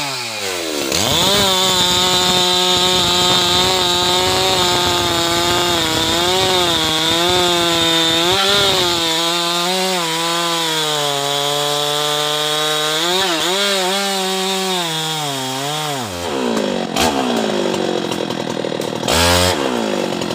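Two-stroke chainsaw held at full throttle while cutting deep into a thick jambu trunk, its pitch wavering as the chain bites. About four seconds before the end it drops back to idle, then gives one short rev.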